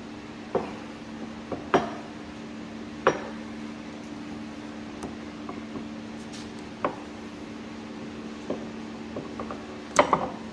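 Scattered light metallic clinks and taps, about half a dozen, as a steel hydraulic cylinder gland is handled and a seal is worked into its groove by hand, over a steady low hum.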